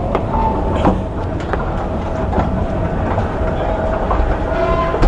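Passenger train heard from inside the carriage: a steady rumble with scattered wheel clicks and a thin, steady whine, as the train runs in at a station.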